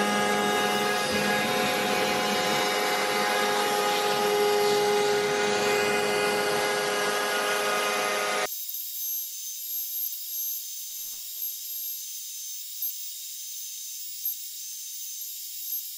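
CNC router spindle running with its bit surfacing an MDF waste board: a dense, steady machine noise with several whining tones. About halfway through it cuts off suddenly, leaving a quieter thin hiss with a steady high whine.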